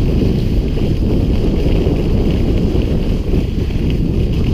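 Wind buffeting the handlebar-mounted camera's microphone as a ski bike runs downhill, a loud steady rumble. Under it is a steady hiss of the bike's skis sliding over packed, groomed snow.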